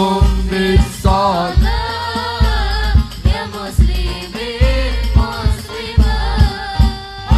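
Sholawat, an Islamic devotional song: a voice sings a melismatic, wavering melody over a band, with deep drum beats coming every half second or so.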